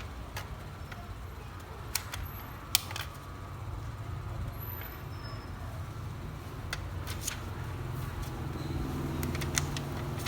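Scattered sharp clicks and taps of small plastic and metal laptop parts being handled during an SSD install, the loudest a little under three seconds in, over a steady low rumble.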